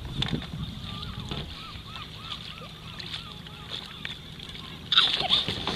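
Water sloshing as a child clambers onto a sit-on-top kayak, while a bird calls in a quick run of short rising-and-falling notes, about three a second. About five seconds in, a loud splash as the child drops off the kayak into the water.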